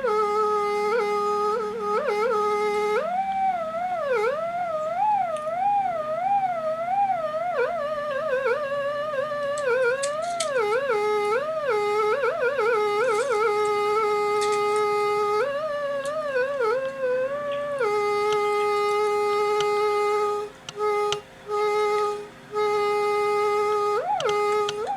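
Music: a single pitched melody line that holds notes, slides between them and wavers, with short breaks about twenty seconds in.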